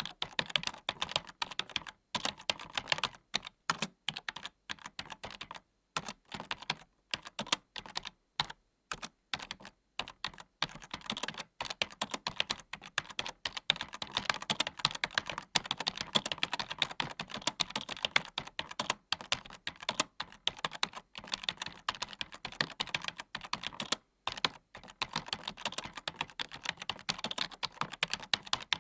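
Typing on a computer keyboard: rapid, irregular key clicks, broken by a few short pauses.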